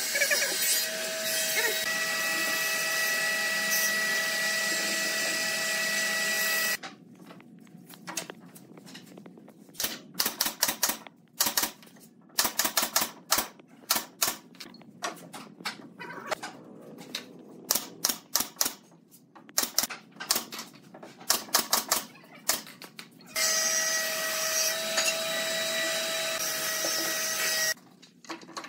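Pneumatic nail gun firing into pallet wood in quick runs of sharp shots, several runs a second or two apart. Before and after the nailing runs there is a steady loud sound with held tones.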